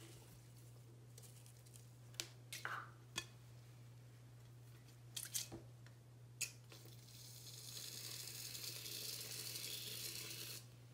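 A few short squirts and clicks, then an aerosol foam can spraying in a steady hiss for about four seconds, starting about seven seconds in and stopping abruptly.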